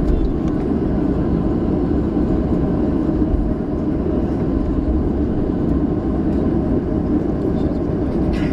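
Boeing 737's turbofan engines running at low taxi thrust, heard inside the passenger cabin as a steady low rumble while the plane rolls slowly along the taxiway.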